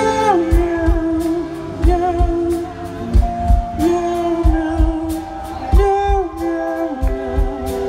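Live band music: long sung notes that slide between pitches, over electric bass and a steady drum beat.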